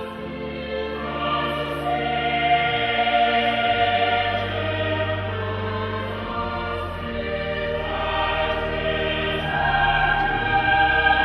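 Choir singing slowly in long held notes over steady low sustained notes, swelling in volume a couple of seconds in and again near the end.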